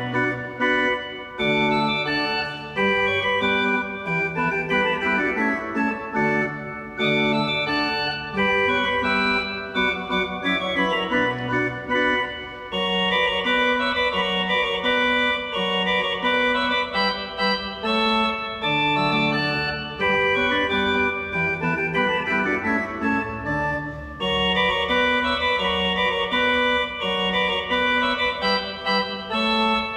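Church organ playing continuous music: full held chords that change about every second over a moving bass line.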